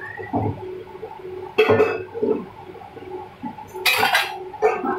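Steel bowl and spatula clinking and knocking against a steel kadai as dry moong dal is tipped in: sharp metal knocks about a second and a half in and again around four seconds, with lighter clinks between.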